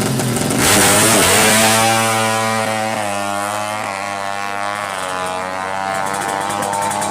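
Yamaha Jupiter MX drag bike's single-cylinder four-stroke engine launching hard from idle about half a second in, loudest at the launch, then revving through the gears with its pitch climbing and dropping as it pulls away and fades.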